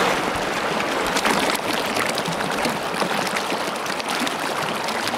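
Mountain stream running over rocks and small cascades: a steady rush of splashing water.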